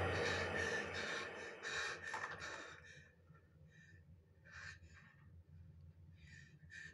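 Horror film soundtrack playing in a cinema, gone quiet: a hushed sound fades over the first couple of seconds, then there are soft breaths and a couple of short gasps a little past halfway.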